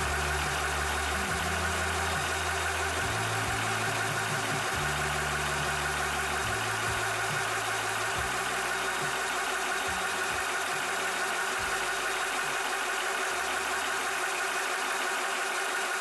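Cobra high-pressure PCP air compressor running steadily.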